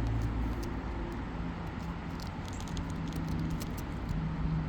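Steady low engine hum, like nearby traffic, with a few light clicks and scrapes of asphalt roof shingles being handled.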